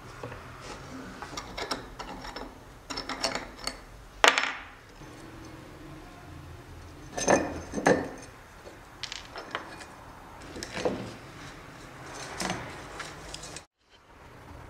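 Metal clicks, scrapes and a few sharp knocks of hand tools working on a rusty old electric iron: an adjustable wrench turning nuts on a threaded steel stud, then pliers handling the heating element's ceramic insulator beads.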